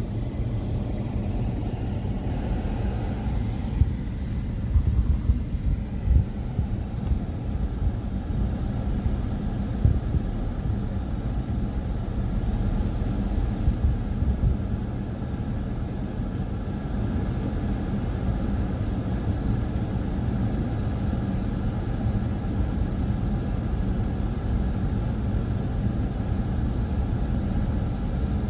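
Steady low outdoor rumble with irregular louder bumps in the first half.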